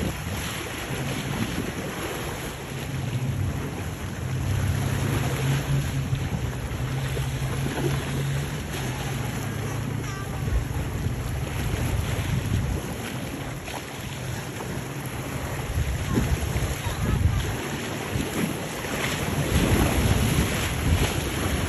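Wind buffeting the microphone over choppy sea and waves, with the steady drone of a small fishing boat's outboard motor running at speed as the boat heads away, growing fainter in the second half.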